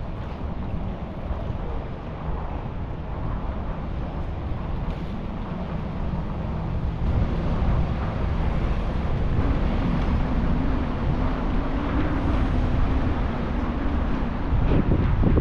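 Wind rushing over the microphone of a moving bicycle-mounted camera, with steady road rumble from the city street underneath. It grows louder about halfway through, and a faint passing engine hum comes through in the second half.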